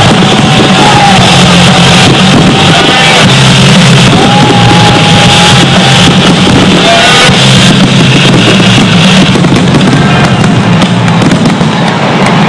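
Loud rock music with a singing voice, with fireworks bangs mixed in.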